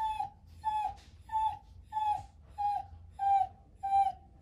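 An injured dog, bandaged and on an IV for burns, whimpering: a run of about seven short, high whines, each dipping slightly in pitch, repeating evenly about every two-thirds of a second.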